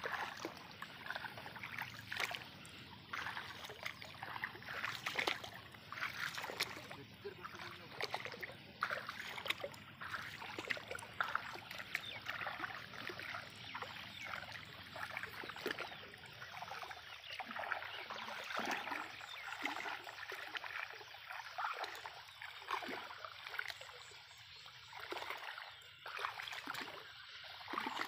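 Shallow water sloshing and splashing, with many small irregular splashes and ticks.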